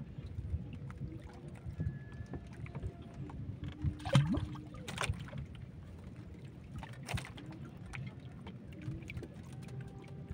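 Fishing line and tackle being handled in a small boat: a few light knocks and rustles, the loudest about four seconds in, over a low steady background rumble.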